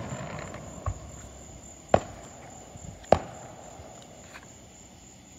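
Fireworks going off: a faint crack about a second in, then two sharp cracks about two and three seconds in, with a hiss that fades away.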